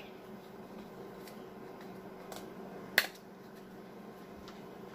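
Spice containers being handled at a kitchen counter: a couple of faint taps and one sharp click about three seconds in, over a low steady hum.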